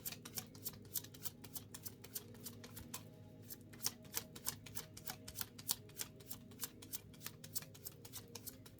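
A deck of oracle cards being shuffled by hand: a quick, irregular run of light card flicks and clicks, several a second.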